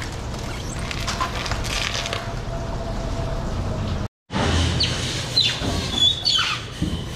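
Steady workroom background noise with scraping and handling sounds as a whole tuna is moved about on a steel table. The sound cuts out for a moment about four seconds in, and afterwards there are a few short, high squeaks that fall in pitch.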